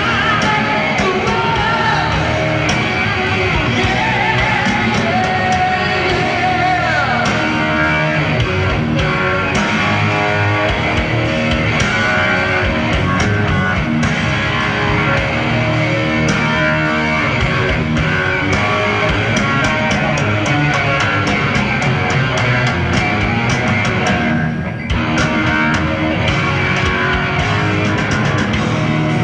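Heavy metal band playing live, with distorted electric guitars, bass and drums under a male lead vocal, recorded from the audience in a concert hall.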